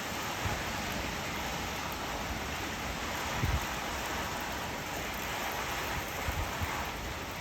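Steady hiss of rain falling in a severe thunderstorm, with one brief low thump about three and a half seconds in.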